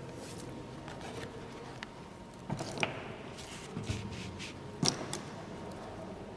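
Hands handling paper and objects on a work table: a few short clicks and knocks over a low steady background, the sharpest just before five seconds in.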